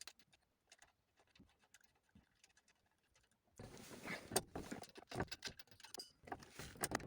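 Scattered light clicks, taps and rustling of car parts and tools being handled during steering-column reassembly, almost silent at first and busier from about halfway.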